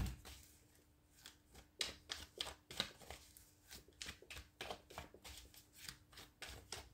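A tarot deck being shuffled in the hands: a faint, quick run of light card flicks and snaps that starts about two seconds in.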